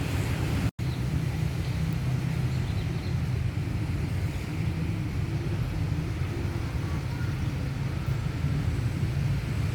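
Steady low rumble of outdoor street ambience with passing traffic. It cuts out for an instant just under a second in.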